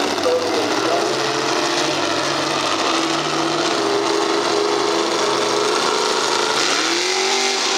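Lifted mega truck's engine running hard as it drives the dirt track: a steady, raspy drone whose pitch shifts slowly, with a rev that rises and falls near the end.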